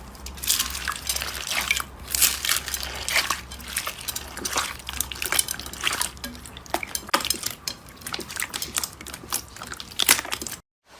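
Slime being squeezed and poked by hand, making a dense run of wet, sticky clicks and pops, several a second; it cuts off suddenly near the end.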